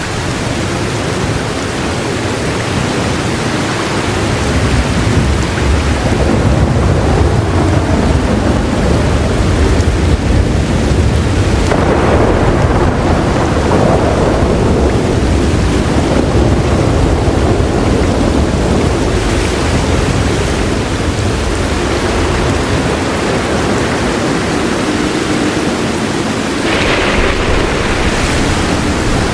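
Heavy rain falling steadily, with a long, low roll of thunder that builds a few seconds in and slowly fades.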